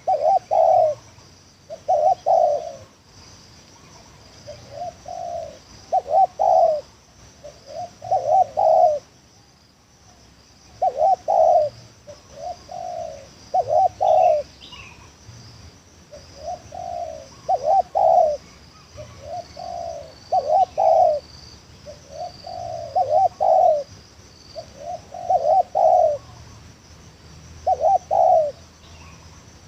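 Spotted dove cooing over and over in short phrases of a few notes, one phrase every two to three seconds.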